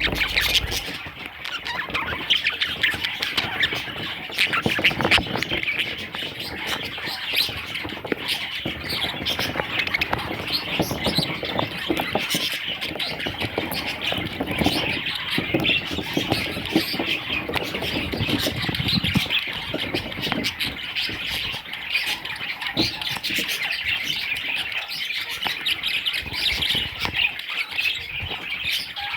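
Budgerigars chattering and squawking, several birds calling continuously over one another in rapid, busy chirps.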